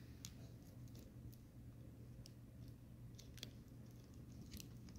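Near silence: a steady low hum with a few faint, sharp clicks scattered through it, from fingers handling and tapping a cardboard toy box.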